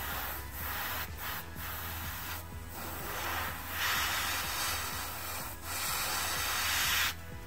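Airbrush spraying a black base coat: a hissing rush of air and paint in stretches of a second or two, cut by short pauses as the trigger is let off, loudest around the middle and just before the end. A steady low hum runs underneath.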